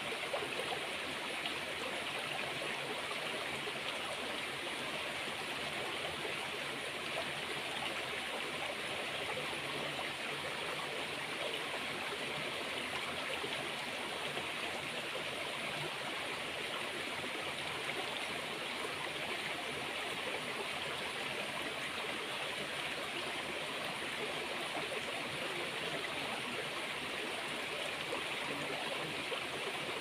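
Flowing water making a steady, even rush that does not change.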